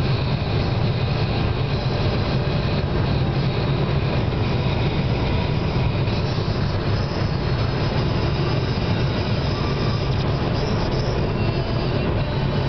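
Steady road and engine noise heard from inside a car cruising at highway speed: an even, low tyre-and-engine rumble.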